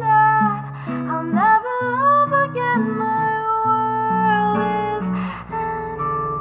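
Background music: a melody with vibrato and pitch slides over a plucked acoustic guitar accompaniment.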